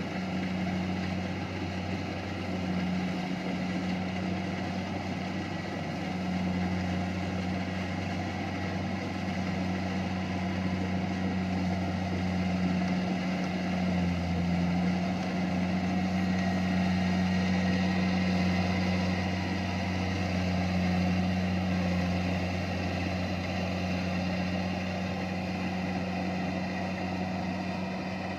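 Kubota rice harvester's engine running steadily with a low, even hum and a whine of machinery above it, swelling slightly louder in the middle.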